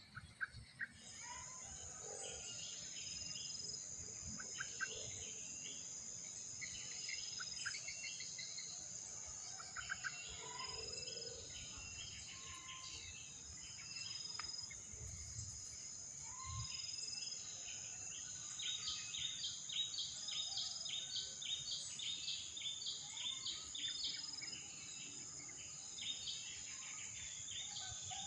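An insect's steady, high, unbroken trill, starting about a second in, under small birds chirping; the chirps turn into a quick run of repeated notes in the second half.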